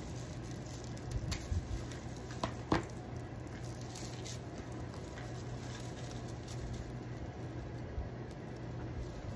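Light rustling and a few sharp little clicks as hands work craft materials, over a steady low hum.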